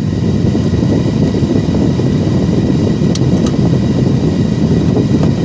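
Loud, steady rush of moving air inside a car, switching on suddenly.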